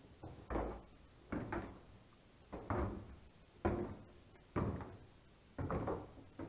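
Footsteps climbing a narrow staircase: a dull thud about once a second, some in quick pairs.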